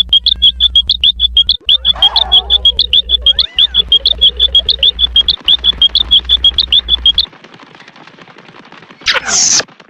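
Cartoon sound effect: a fast run of short, high-pitched chirps, about six a second, over a low hum, stopping after about seven seconds. A short noisy whoosh follows near the end.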